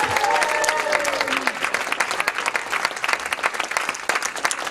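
Audience applauding with many hands clapping, and a voice heard over it in the first second or so. The clapping thins out toward the end.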